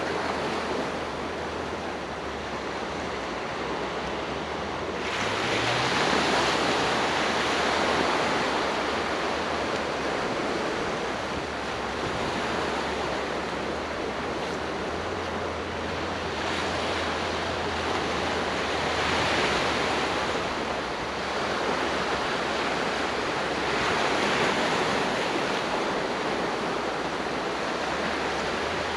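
Sea waves breaking and washing onto the shore, a steady rush that swells louder several times as waves come in.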